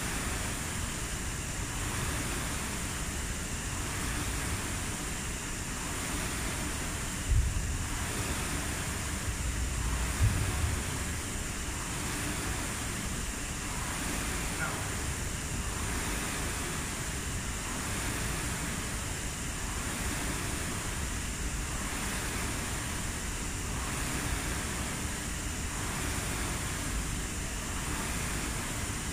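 Air rowing machine's fan flywheel whooshing under steady rowing, swelling and easing with each stroke in a regular rhythm. Two short low thumps stand out, about seven and ten seconds in.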